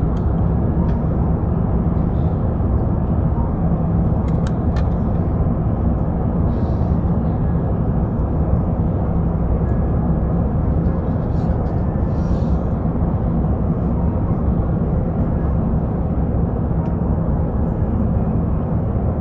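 Steady cabin noise inside an Airbus A350-900 on descent, heard from a window seat by the wing: an even rush of airflow and Rolls-Royce Trent XWB engine noise with a low hum underneath. There are a couple of faint clicks about four seconds in.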